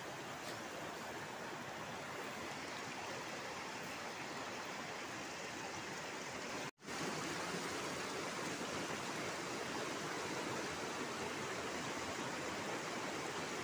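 Shallow rocky river rushing over stones: a steady rush of water. It cuts out for an instant about halfway through and comes back slightly louder.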